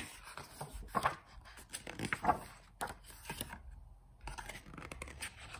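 Pages of a hardback picture book being turned and handled: a series of short papery rustles and flaps.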